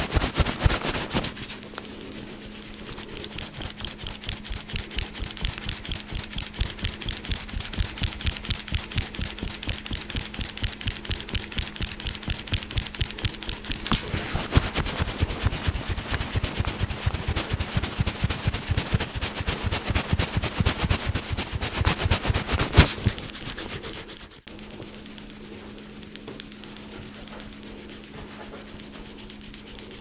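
Fast, rhythmic percussive massage: hands slapping and chopping on a person's head and back at about six strokes a second, stopping about three quarters of the way through. A steady low hum and hiss remain after the strokes stop.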